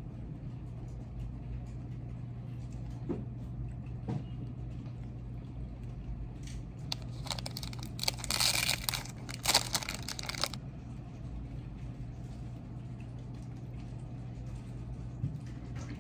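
Two soft knocks, then about three seconds of crinkling and rustling, like packaging being handled, over a steady low hum.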